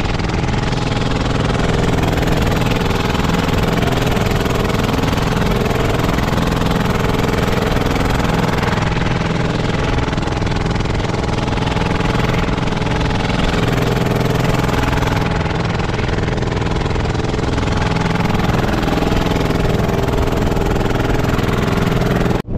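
Fishing boat's engine running steadily, a loud even drone with no change in speed.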